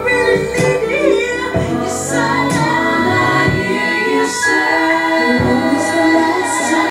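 Background music with a singing voice over a steady beat, cutting off suddenly at the end.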